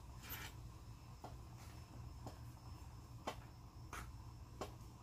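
Quiet low rumble with scattered light clicks, about seven of them, and a short hiss near the start.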